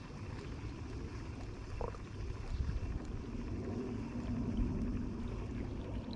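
Low rumbling wind-and-water noise aboard a small bass boat, with a low steady hum coming in about halfway through.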